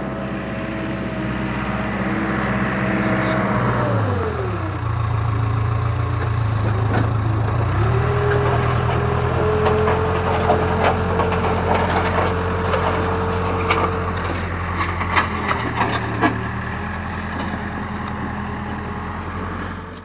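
Case 580K backhoe's diesel engine running. Its pitch drops about four seconds in and climbs back about eight seconds in, then holds. Scattered knocks and crunches of rock and dirt come through in the second half.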